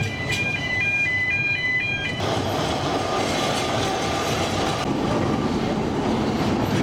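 A narrow-gauge steam train running along the track, its carriage rattling and rumbling, heard from an open-sided carriage. For about the first two seconds a simple electronic chime tune of high stepping notes plays instead; it cuts off suddenly as the train noise comes in.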